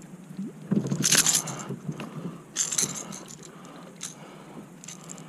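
A hooked bass thrashing on the line, its lure and hooks rattling and jangling in three short bursts: about a second in, near the middle, and just after four seconds.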